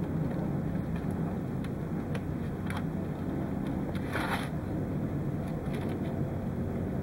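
Steady low room rumble, with faint small clicks and one brief rustle about four seconds in from hands handling thin wires on the plastic model part.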